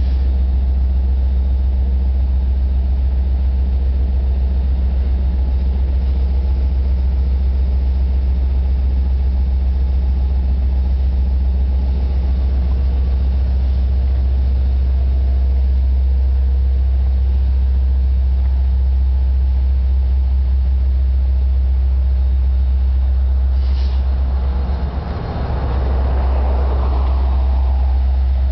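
Diesel engine of a Long Island Rail Road DM30AC locomotive running steadily with a deep, even drone while the train stands at the station. Near the end a swelling rush of noise rises over it.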